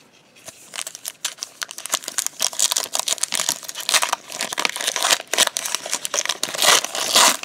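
Foil wrapper of a trading-card pack crinkling and tearing as it is pulled open by hand: a dense run of crackles starting about half a second in.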